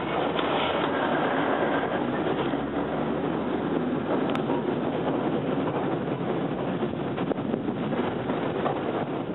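Sheffield 74, a 1900 electric tram, running along the track: a steady rumble of wheels and running gear from its open rear platform, with wind on the microphone.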